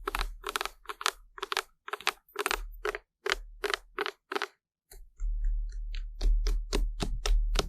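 ASMR crunching sounds: a run of crisp crunches, about two or three a second, quickening from about five seconds in with a low rumble beneath.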